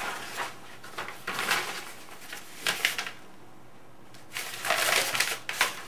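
Sheets of paper rustling and crinkling as they are handled, in several short bursts with a quiet pause about three seconds in.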